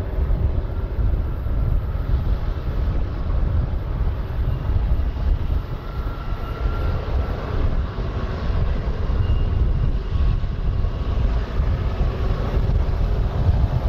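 Distant freight train's diesel locomotives droning steadily, with wind buffeting the microphone.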